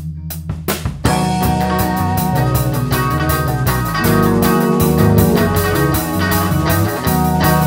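Lo-fi noise-pop band playing, instrumental: sparse drum hits over a held bass note, then about a second in the full band comes in with distorted guitars and drums, a little louder again about four seconds in.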